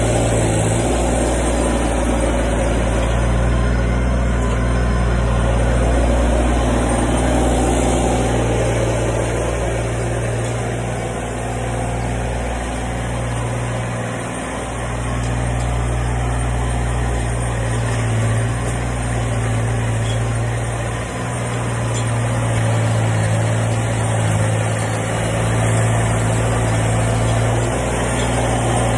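Massey Ferguson compact tractor engine running steadily under load, pulling a chisel plow through the manure-packed ground; the engine sound dips briefly twice.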